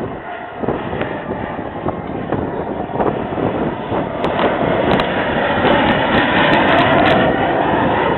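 An aircraft flying past: its engine noise builds to a peak about six to seven seconds in and then eases, with wind buffeting the microphone.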